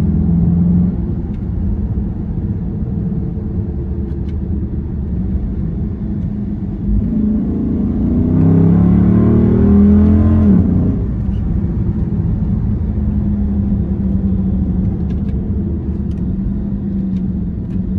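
Dodge Charger SRT 392's 6.4-litre HEMI V8 heard from inside the cabin, droning steadily at cruise. About halfway through it gets louder under acceleration, the pitch climbing, then drops sharply and settles back to a steady cruise.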